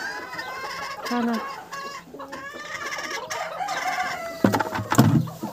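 Domestic chickens clucking and calling, with a loud clatter about four and a half seconds in.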